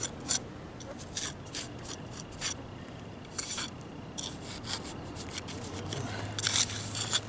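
Steel mortar jointer (slicker) scraping along fresh mortar joints between bricks in a series of short strokes, tooling the joints smooth, with a longer scrape near the end.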